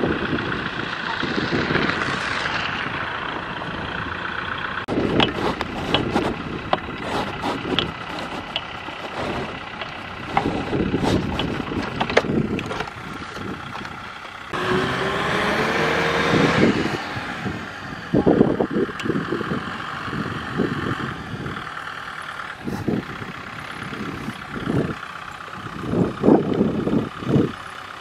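Kubota M6040SU tractor's diesel engine running under load as it pulls a loaded trailer through mud, with scattered knocks and clunks throughout. Around the middle the engine revs up for a couple of seconds.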